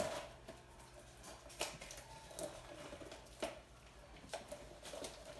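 Handling noises at a table: six or seven short, soft clicks and taps spaced about a second apart, over quiet room tone.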